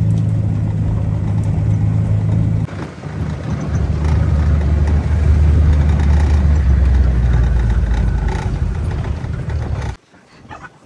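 Farm vehicle engine running steadily; about a quarter of the way in its pitch drops and it gets louder, as under load. It cuts off abruptly near the end.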